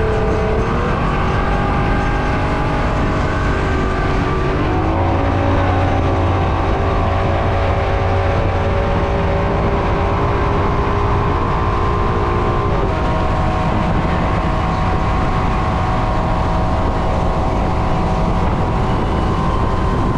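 V6 outboard motor driving a center-console boat at speed, its pitch rising about four seconds in as the boat speeds up, then running steady. A constant rush of wind and water sits under the engine.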